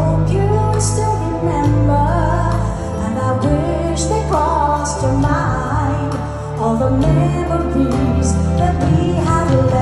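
A woman singing a song live into a handheld microphone, backed by a band with keyboard and electric bass, amplified through the concert sound system. The sung line wavers with vibrato over a steady, strong bass.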